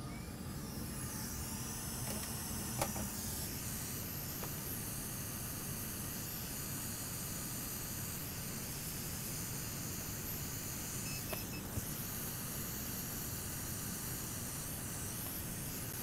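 Hot air rework station nozzle blowing a steady hiss of hot air onto a graphics card's circuit board, melting the solder to free the burnt 12V-2x6 power connector. A faint click about three seconds in.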